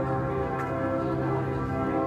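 Church bells ringing, several tones overlapping and sustained as they ring on.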